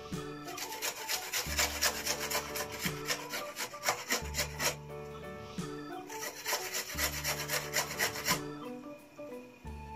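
Onion being grated on a flat metal grater: fast rasping strokes in two bouts with a short break about three seconds in, over soft background music.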